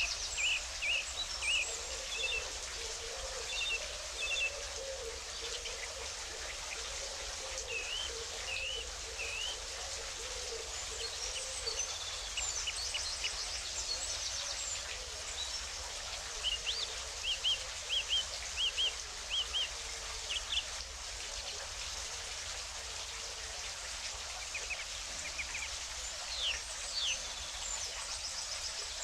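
Birds chirping and singing over a steady rush of running water, with short whistled notes scattered throughout and a run of quick repeated chirps about two-thirds of the way through.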